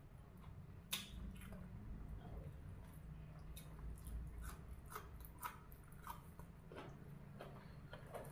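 A person chewing and biting raw vegetables and sticky rice, with wet mouth smacks and small crunchy clicks; a sharp click about a second in is the loudest. A low steady hum runs underneath.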